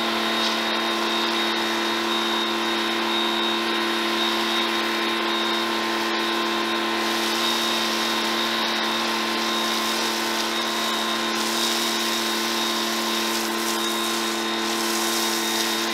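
Giraffe Tools 1600 PSI electric pressure washer running steadily, its motor and pump holding a constant hum under the hiss of the spray as it feeds an MJJC foam cannon.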